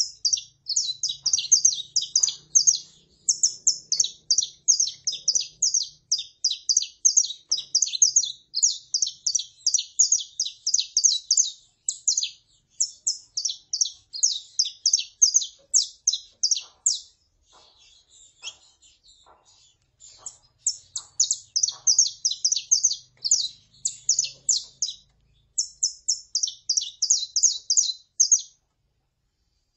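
Saffron finches calling and singing: long runs of rapid, sharp, high chips, with a quieter stretch a little past halfway.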